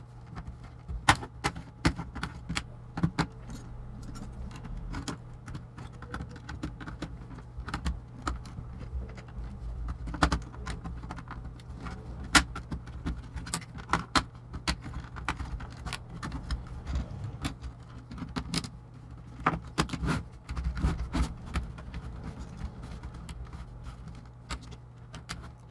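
Plastic laptop case being pried apart: irregular sharp clicks and snaps as a pry tool works along the seam and the bottom case's plastic clips let go, over a steady low hum.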